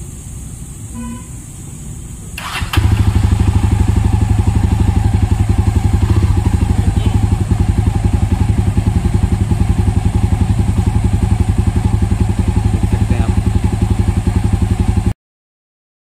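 Jawa 42 Bobber's 334 cc single-cylinder engine turned over by the electric starter and catching at once, about two and a half seconds in, then idling steadily through the exhaust with a quick even beat. The sound cuts off suddenly near the end.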